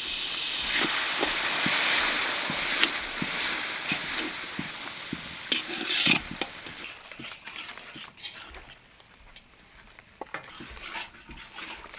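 Water hitting hot oil and ground spices in a metal wok sizzles loudly, with a spatula knocking and scraping against the pan as the masala is stirred; the water is added to keep the spices from burning. The sizzle dies down about seven seconds in, leaving only scattered soft taps.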